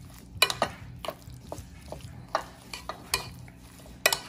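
Gloved hand mixing crab-meat salad with mayonnaise in a ceramic dish: irregular soft clicks and small knocks against the dish, with the loudest pair near the end.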